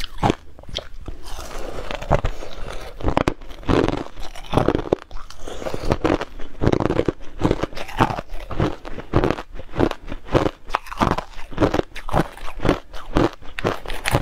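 Hard crushed ice being bitten and chewed close to the microphone: a dense, irregular run of sharp crunches, several a second.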